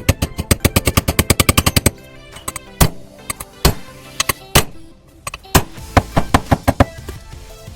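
A rapid run of sharp knocks, about ten a second for two seconds, then scattered single knocks and short clusters, over background music.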